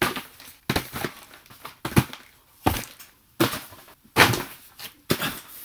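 A cardboard doll box being swung and handled, giving about eight short, sharp scuffs and knocks a little under a second apart.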